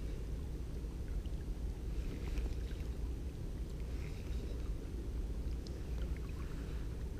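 Steady low rumble of wind buffeting the microphone, with a few faint light clicks.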